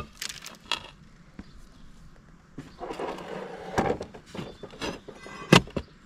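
Steel digging bar knocking and scraping against asphalt as a cut-out wedge of court surface is pried loose. There is a sharp knock right at the start and another about five and a half seconds in, with crunching and scraping in between.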